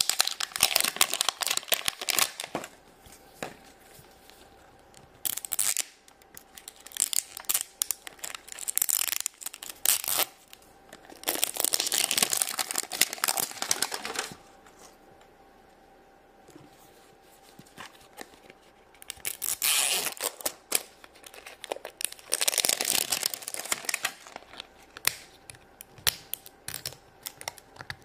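Plastic wrapping of an LOL Surprise doll ball being torn open and crinkled by hand, in repeated bursts of a second or more with short pauses between.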